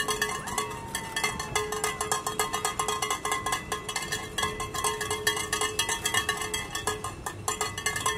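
Fast, continuous metallic clinking and rattling from handheld noisemakers, many sharp clicks a second over a steady ringing tone.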